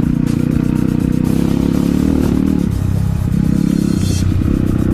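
Honda CRF150L trail bike's single-cylinder four-stroke engine running under load while riding over a gravel track. Its note drops for a moment near the middle and then picks up again.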